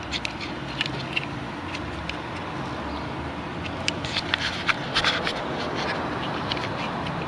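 Small plastic clicks and scrapes from a car door courtesy-light housing and its wiring connector being handled and unplugged, with a quick run of clicks about four to five seconds in, over steady background noise.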